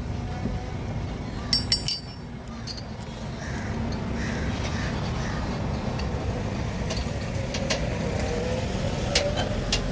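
Metal tools clinking together sharply a couple of times about a second and a half in, then scattered clicks, over the steady rumble of passing road traffic.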